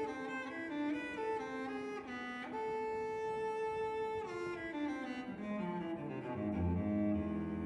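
Background music: a solo cello melody. A long note is held in the middle, then the line steps down to low notes near the end.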